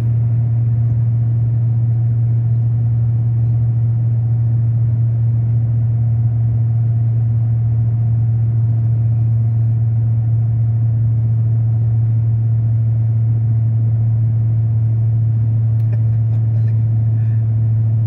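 Steady low drone of engine and road noise heard inside a car cruising at highway speed, unchanging throughout.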